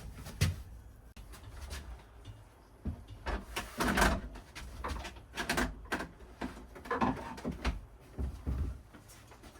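Handling noises: a scattered series of irregular clicks, knocks and low clunks as parts are moved and set in place by hand.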